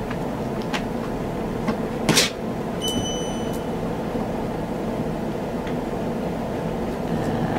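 EcoFlow Glacier portable fridge running with a steady hum from its compressor and fan, with a few light clicks. About two seconds in there is a short, loud burst of noise, and just after it a brief electronic beep.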